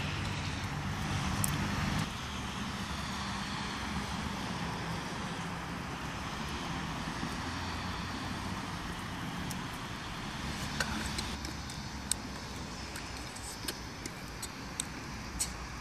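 Steady outdoor background noise, a low rumble with a hiss over it, easing off slightly about two seconds in; a few faint ticks in the second half.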